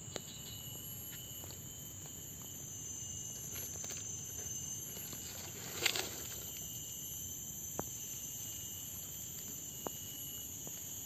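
Steady high-pitched insect drone from tropical undergrowth, with a few faint ticks. About six seconds in there is one brief rustle as a long-tailed macaque jumps off a cardboard box into the grass.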